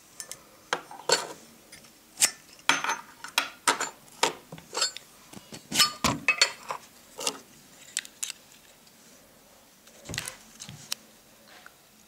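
Metal clicks and clinks of Zippo lighters being handled: the inserts pulled from their cases and knocked against the metal. A quick run of sharp clinks for the first seven seconds or so, then a duller knock about ten seconds in.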